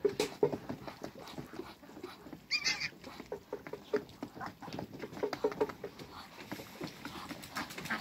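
Ducks and geese feeding from a trough: quick irregular clicks and dabbling from their bills. One bird gives a short, higher call about two and a half seconds in.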